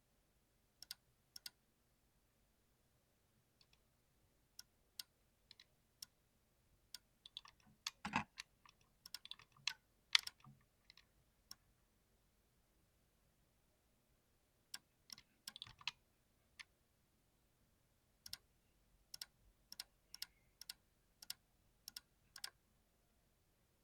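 Mechanical keyboard with clicky switches being typed on: sharp, separate keystroke clicks at an uneven pace, with a few quick runs of keys and short pauses in between.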